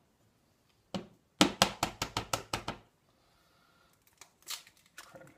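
An egg being tapped and cracked into a ramekin lined with cling film: a quick run of sharp taps about a second and a half in, then a few fainter clicks near the end.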